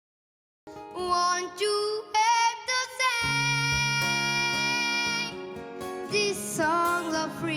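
Silence for about half a second, then a song starts: a singing voice over instrumental accompaniment, holding one long note in the middle.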